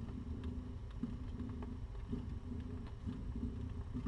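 Domestic cat purring while nursing kittens: a steady low rumble that swells and breaks in time with her breaths, with a few faint small clicks.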